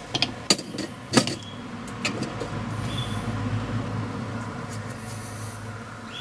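Hand tools and metal parts knocking and clinking, several sharp strikes in the first second or so and another near two seconds in, then a low scraping rumble as a new wheel stud is levered into an MGA rear hub with a bar.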